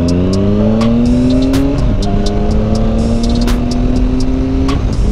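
Triumph Speed Triple 1050's inline three-cylinder engine pulling hard through the gears, its pitch rising. It drops sharply at an upshift about two seconds in, climbs slowly again, and drops at another shift near the end.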